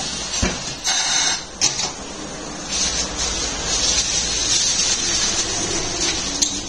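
Hissing in tyre-shop work, likely air, with a few sharp clicks and knocks, one about half a second in, one about a second and a half in, and one near the end.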